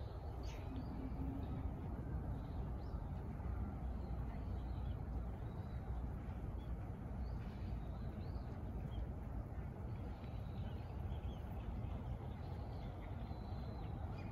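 Outdoor park ambience: a steady low background rumble with scattered short bird chirps and calls throughout.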